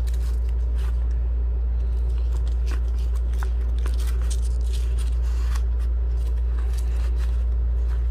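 Handling noises as a multitool is pushed into its nylon sheath and the cover strapped shut: scattered small scrapes and clicks. A steady low hum runs underneath and is louder than the handling.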